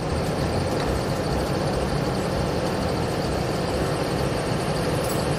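Small portable generator running steadily at a constant speed.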